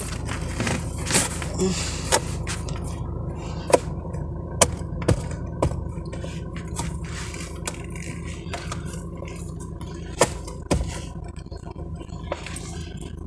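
A Toyota car's engine running steadily at idle, a low hum heard from inside the cabin. Scattered sharp clicks and scrapes sound over it.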